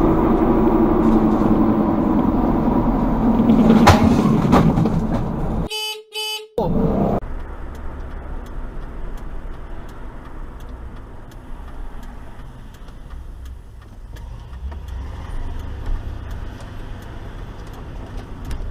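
Car traffic and a car horn heard from inside a moving car. The first several seconds are loud, a few short beeps come about six seconds in, and then a steadier, quieter road and engine rumble follows.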